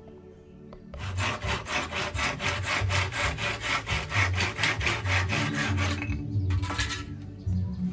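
Hand saw cutting through a bamboo pole in quick back-and-forth strokes, about five a second. The sawing starts about a second in and stops about six seconds in, with a brief few strokes more near the end.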